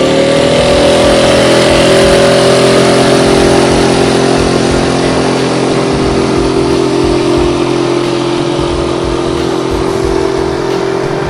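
Small outboard motor opened up sharply from a standstill: the engine note climbs quickly at the very start, then holds steady at high revs, slowly fading as the boat pulls away.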